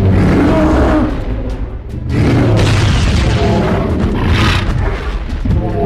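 Animated fight-clip soundtrack: music with heavy booming impact effects, dipping briefly about two seconds in before picking up again.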